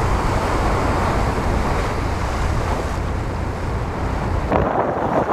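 Wind buffeting the microphone over waves washing and breaking against jetty rocks, a steady rushing noise with a deep rumble. Near the end the sound changes abruptly and the deep rumble drops away.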